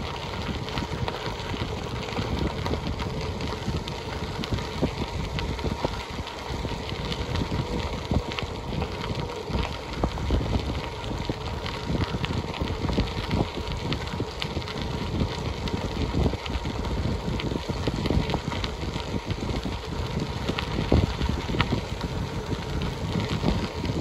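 Bicycle rolling along a crushed-gravel trail: a steady low rumble from the tyres on the gravel, with frequent small rattles and knocks from the bike and a faint steady hum underneath.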